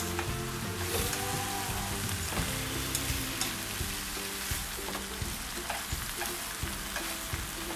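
Beef, shrimp and vegetables sizzling steadily in hot oil in a frying pan as they are stir-fried and turned with chopsticks.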